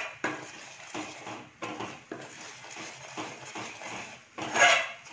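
Metal spoon stirring and scraping thick, reduced milk in a steel pan, about two scrapes a second, with a louder scrape near the end.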